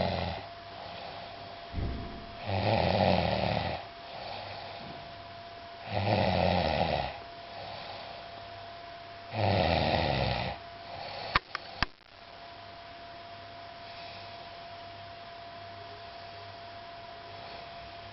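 A person snoring in deep sleep: three long, loud snores about three and a half seconds apart. Two sharp clicks come about eleven seconds in, after which the snoring stops and only a faint steady hum remains.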